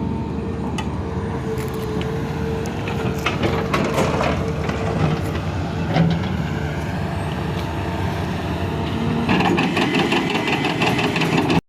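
Sumitomo SH350 LC excavator's diesel engine running steadily with a held whine, and scattered knocks and clanks from the machine working. A dense, rapid rattling starts near the end.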